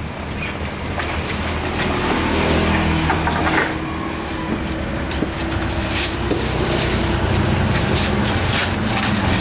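A motor running steadily with a low hum. Plastic bag rustling and crinkling as cut fish is tipped into it, with short knocks of handling.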